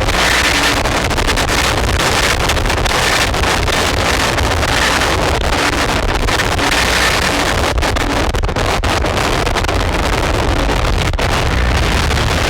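Harsh noise music from a chain of effects pedals, among them Death By Audio pedals and a BOSS Metal Zone distortion: a loud, dense wall of distorted hiss and rumble with many brief dropouts and a faint high tone running through it.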